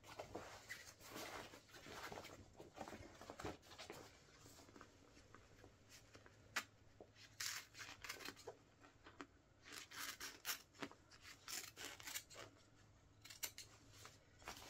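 Fabric of a Wellensteyn Schneezauber jacket being cut and ripped: a faint, irregular run of short cutting and tearing sounds, with a few longer rasps around the middle and near the end.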